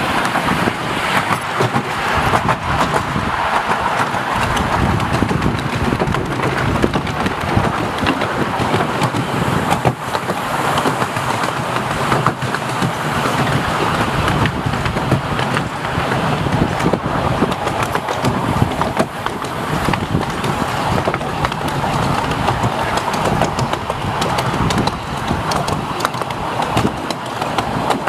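A 7¼-inch gauge miniature steam train on the move, heard from aboard a passenger carriage: a steady, loud rumble of the carriages running along the rails.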